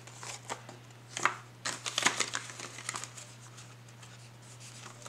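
Paper banknote, tracker card and laminated cash envelopes rustling and crinkling as they are handled, with a cluster of sharp crinkles in the first three seconds and lighter rustles after. A steady low hum runs underneath.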